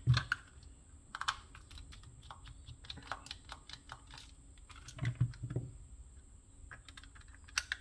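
Light scattered clicks and taps of a plastic mouse shell and a precision screwdriver as a small Phillips screw is undone from the underside of a Microsoft Wireless Mobile Mouse 3500, with a few louder knocks about a second in and around five seconds in as the mouse and screwdriver are handled and set down.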